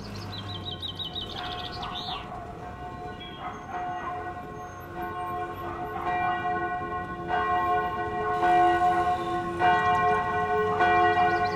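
Church bells ringing, a new stroke about every second, the peal overlapping and swelling louder. A bird trills briefly at the start.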